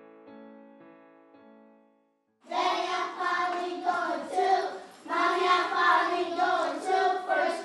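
Background music fades out over the first two seconds. Then, after a brief silence, a group of young children and their teacher sing together, in two long phrases with a short break between them.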